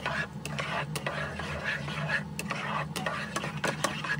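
Spatula stirring and scraping scrambled eggs around a stainless steel wok, with frequent short scrapes and taps against the pan over the sizzle of the egg frying in oil.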